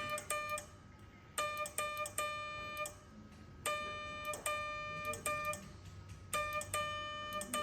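Morse code being sent as a steady-pitched, buzzy beep keyed on and off by a relay-driven radio. Short and long beeps come in groups that repeat about every two and a half seconds, and each beep starts with a click.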